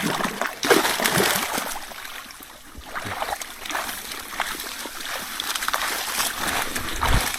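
Water splashing and streaming as a fish trap is hauled out of a flooded stream, with many small irregular splashes and drips throughout.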